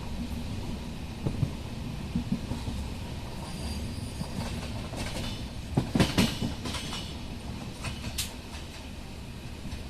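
Train running on the rails: a steady low rumble with the clatter of wheels over rail joints, and a burst of sharp clanking with a brief metallic squeal about six seconds in.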